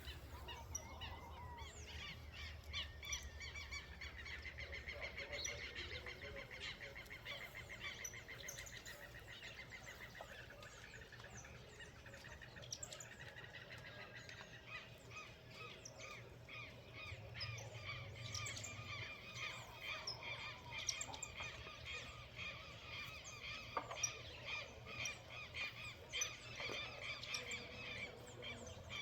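Several birds chirping and calling at once, short repeated notes overlapping without a break.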